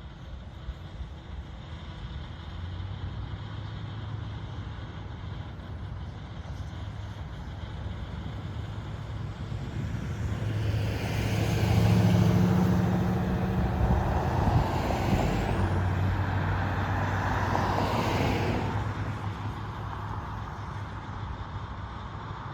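A road vehicle passing, its engine hum and tyre noise swelling to a peak and then fading over several seconds, over a steady low background hum.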